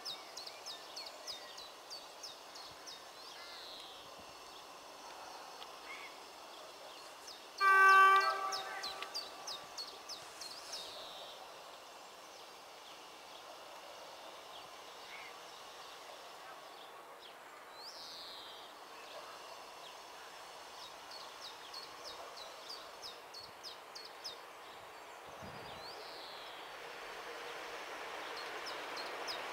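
A train horn gives one short blast about eight seconds in, the loudest sound here, a single pitched tone rich in overtones. Small birds chirp and whistle throughout, and near the end the noise of an approaching train slowly rises.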